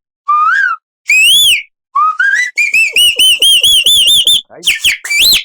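A mimicry artist imitating forest birdsong by mouth-whistling: three separate arched whistled notes, then a quick trill of about six rising-and-falling whistles a second, then sharper chirps near the end.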